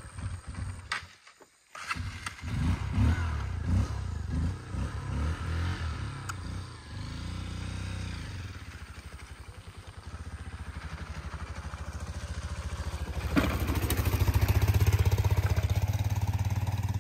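A small engine running, its pulses uneven for the first several seconds, then steady, and louder from about thirteen seconds in.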